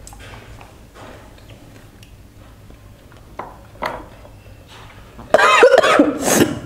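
A few small clicks, then a person coughing loudly for a little over a second, about five seconds in.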